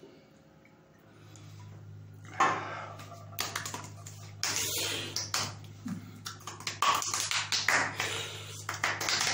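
Hands rubbing aftershave between the palms and slapping it onto the face and neck: a run of sharp pats and rubbing sounds. A low steady hum starts about a second in.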